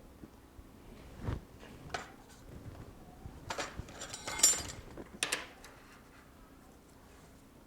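Small metal tools and parts handled on a workbench: scattered light taps and knocks, with a brief metallic clatter about four and a half seconds in.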